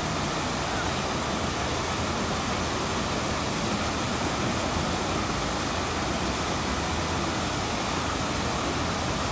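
Fountain water splashing: a steady rush from the cascade over the stone basin and the tall jet falling back into the pool, with a low rumble of city traffic underneath.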